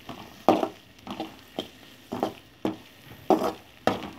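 Metal ladle knocking and scraping against a metal pan while stirring frying onions, about seven sharp strokes roughly one every half second, some with a brief metallic ring.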